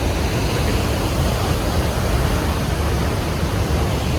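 Steady, loud rushing roar of a waterfall, an even wash of noise with a heavy low rumble and no breaks.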